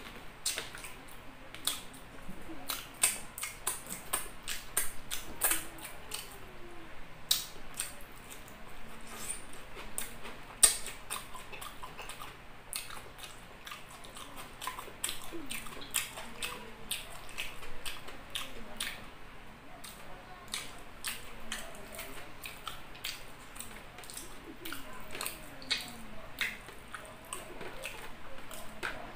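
Close-up eating sounds of a man eating rice and soft chicken liver adobo by hand: wet chewing and lip smacks, with many sharp, irregular clicks.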